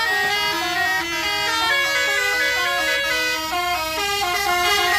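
Bus telolet "basuri" musical air horn playing a quick tune of short notes that step up and down in pitch.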